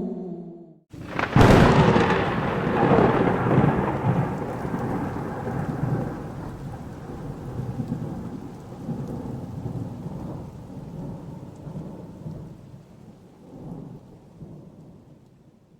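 Thunder sound effect: a sudden crack about a second in, then a long rolling rumble that swells a few times and slowly fades away.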